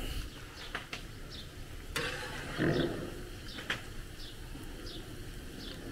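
Outdoor ambience: a small bird chirping repeatedly, about two short chirps a second, over a low steady background noise, with a few sharp knocks and a brief louder low sound about two and a half seconds in.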